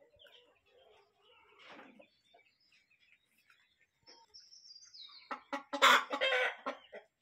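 Domestic hens clucking softly while foraging, with a louder run of calls in the last two seconds.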